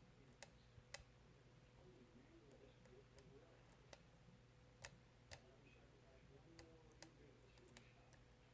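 Faint, sharp clicks of a lock pick and tension tool working inside a Schlage Primus lock cylinder, about ten ticks at irregular intervals.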